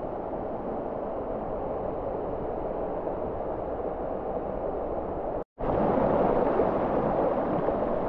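Steady rush of flowing water from a creek or waterfall. It cuts out for an instant about five and a half seconds in, then comes back louder and brighter.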